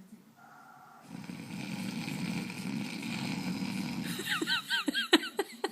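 A man snoring: one long rattling breath of about three seconds starting about a second in. Near the end come a quick run of short high-pitched chirping sounds and sharp clicks.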